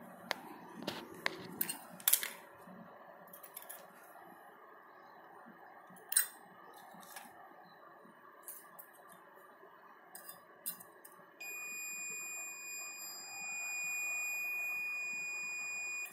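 A few sharp clicks and taps of small parts being handled, then, about eleven seconds in, a multimeter's continuity buzzer sounds a steady high-pitched beep for about four and a half seconds, getting louder partway through. The beep signals an unbroken circuit through the iron's thermistor.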